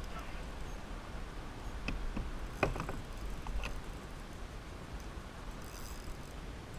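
A few light clicks and knocks from a spinning reel and rod being worked from a kayak while a hooked carp is played, over a low steady rumble. The clicks come mostly in the middle, a close pair among them.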